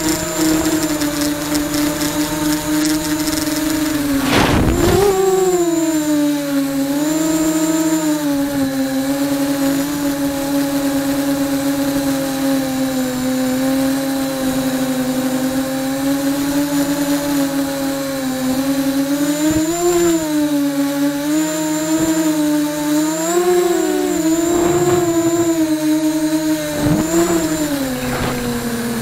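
QAV250 miniquad's electric motors and propellers buzzing, picked up by the camera mounted on the quad, the pitch sliding up and down as the throttle changes, with a steady high whine above it.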